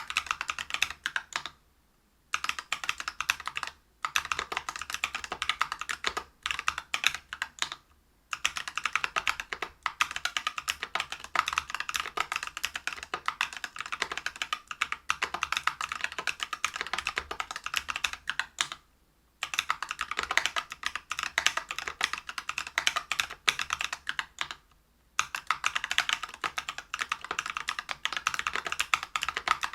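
Typing on a LinWorks Whale 75 mechanical keyboard with lubed Neapolitan Ice Cream tactile switches (63.5 g), a brass plate and PBT keycaps: a fast, steady stream of keystrokes. It breaks off in short pauses about two, four, eight, nineteen and twenty-five seconds in.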